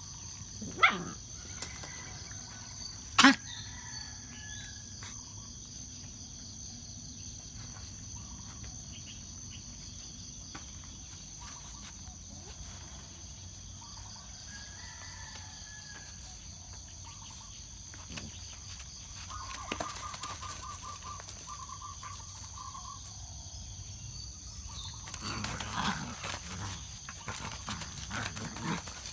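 Steady high-pitched insect drone, with two sharp knocks in the first few seconds and two puppies scuffling as they play-fight near the end.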